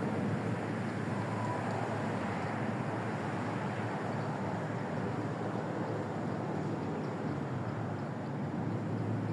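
Steady outdoor rumbling background noise with a constant low hum underneath, unchanging throughout.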